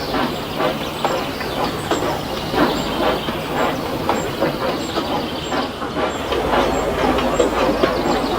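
Train in motion, with a regular clatter about twice a second over a steady rumble.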